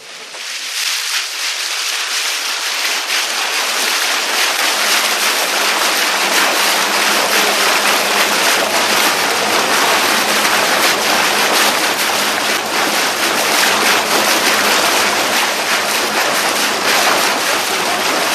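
Boat under way: a loud rush of wind and water that builds over the first few seconds and then holds steady, with a faint low engine hum underneath.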